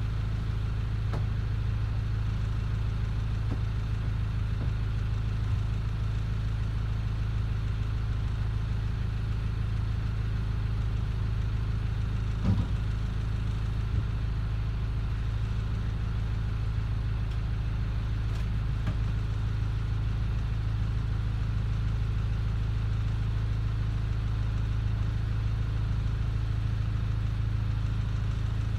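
Boat engine idling steadily at docking speed, a low even hum. Two short knocks sound about halfway through, a second and a half apart.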